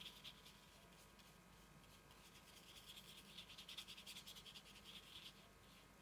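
Faint soft scratching of a round watercolour brush stroking over watercolour paper as it wets a flower centre with water, in quick repeated strokes that grow a little stronger about halfway through.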